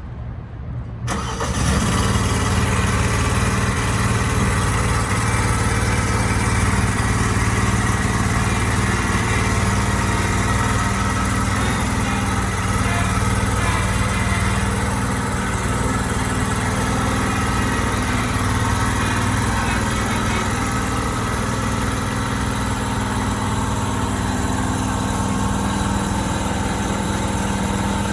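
Gasoline engine of an Allmand TLB 220 compact loader backhoe catching about a second in, then running steadily.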